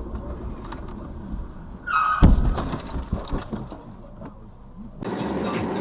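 A car collision picked up by a dashcam over steady road noise: a brief squeal, then a sudden heavy crash about two seconds in, followed by scattered clattering and knocking for about two seconds. Near the end the sound jumps abruptly to a louder, even hiss.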